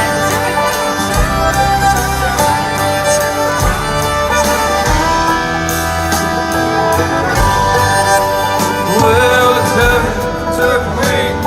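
Country band playing live: the instrumental opening of a song, a fiddle melody over guitar, bass and low drum hits.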